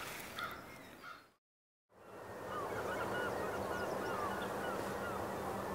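Birds calling outdoors: short, repeated, curving calls over a steady background hiss. They stop for a moment of complete silence at a cut about a second in, then carry on.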